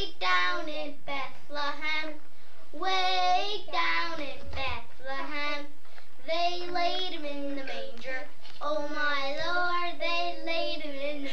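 A child singing a song unaccompanied, in phrases of long held notes with short breaths between.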